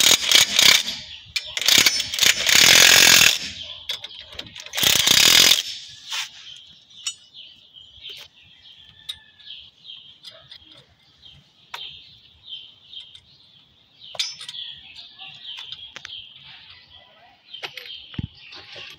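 Three loud bursts of a power tool in the first six seconds, then a hand socket ratchet clicking in short, irregular runs.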